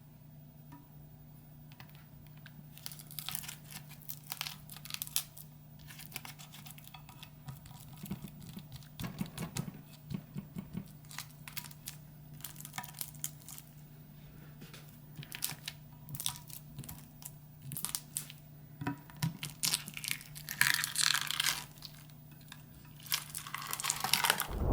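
Slime being handled and pulled apart, giving off irregular sticky crackling and tearing sounds that grow busier near the end, over a faint steady low hum.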